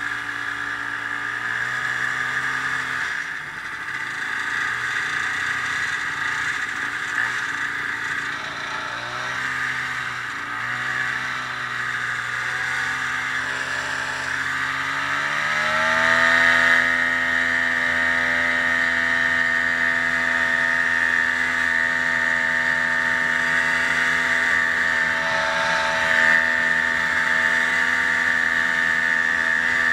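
Snowmobile engine running under way, its pitch shifting up and down, then rising about halfway through and holding steady at higher revs.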